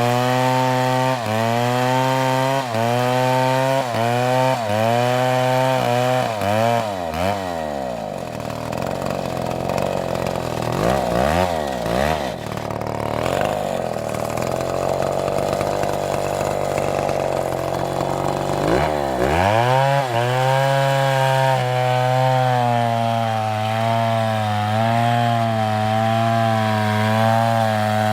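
Two-stroke chainsaw cutting oak. The engine pitch rises and dips in quick repeated sweeps for the first few seconds, drops lower and wavers through the middle as the chain labours in the wood, then climbs sharply about two-thirds through and holds a higher, steadier note.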